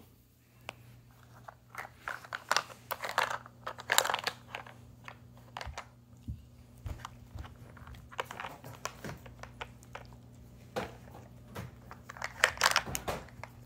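Saluki working a plastic puzzle feeder with its nose, knocking and clicking the plastic lids and bone-shaped pegs in irregular bursts, mixed with crunching as it eats the treats it uncovers.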